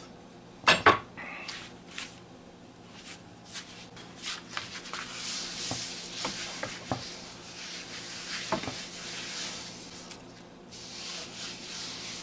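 Rubbing and scraping on a wooden cutting board, with scattered light clicks. Two sharp knocks come just under a second in.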